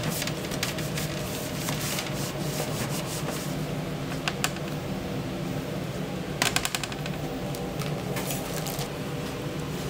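Scraping and rubbing during kitchen food prep over a steady machine hum, with a quick run of clicks about six and a half seconds in.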